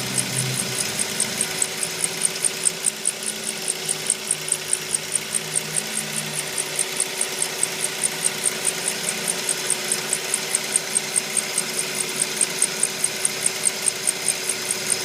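A 2004 Mazda 3 making a rhythmic high-pitched squeak, about four or five short chirps a second, over a steady mechanical hum.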